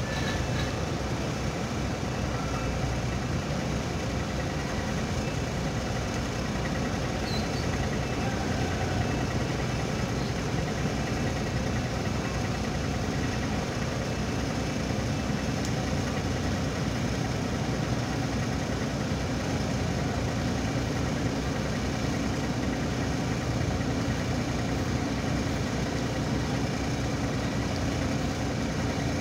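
Ship's engine running steadily: a low, even drone with a faint steady hum, which grows a little stronger about two-thirds of the way through.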